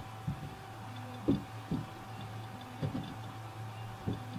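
Hands handling cotton fabric on a wooden table while fitting two pieces together, with about five soft knocks against the tabletop over a steady low hum.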